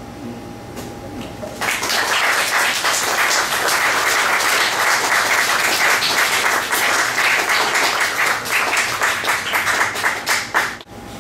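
Audience applauding at the end of a poem. The clapping starts about a second and a half in and stops suddenly near the end.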